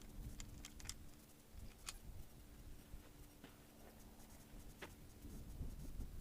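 A few faint, sharp clicks scattered over a low steady hum, with no shot fired.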